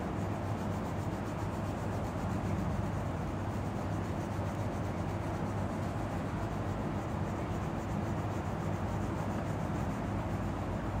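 Crayon rubbing back and forth on paper as a drawing is coloured in, a steady unbroken scribbling.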